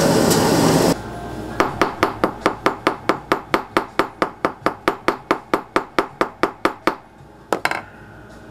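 A steady rushing noise cuts off about a second in. Then a small hammer taps metal in a fast, even series of about four blows a second for some five seconds, followed by a quick double tap.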